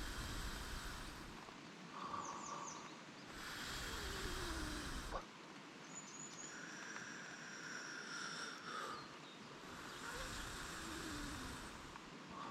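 Outdoor ambience in the rain: a rushing noise with a low rumble that swells and fades three times, with a few faint high chirps and whistles in between.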